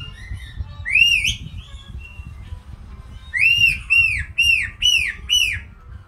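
White-bellied caique whistling: one high arching whistle about a second in, then a run of five short, arching whistles in quick succession a little past halfway.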